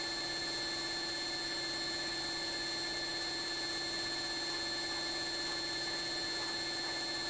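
Slotting head on a Bridgeport mill running steadily, its ram stroking the cutter up and down through the bore of a motor coupler on the first passes of a keyway cut. It makes an even machine hum with a constant high whine.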